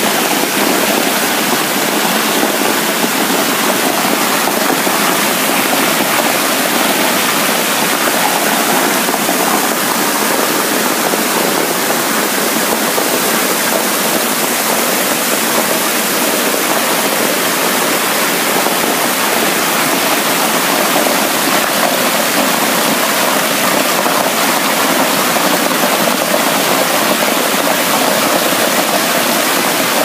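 An architectural waterfall: many thin streams of water falling from a building's overhang and splashing into a shallow pool below, making a steady, even hiss.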